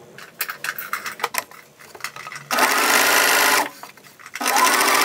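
Domestic sewing machine with a twin needle sewing a straight seam. A few light clicks and rustles come first. The machine then runs for about a second, stops briefly, and starts again near the end.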